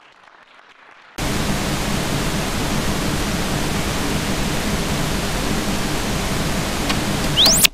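Television static: a loud, steady hiss of white noise that switches on suddenly about a second in. Just before the end a thin whistle sweeps quickly upward and the static cuts off abruptly.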